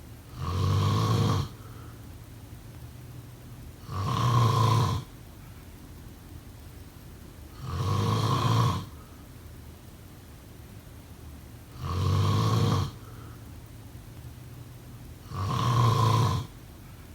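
A person snoring: five loud snores at an even pace, one about every four seconds, each lasting about a second, with quieter stretches between.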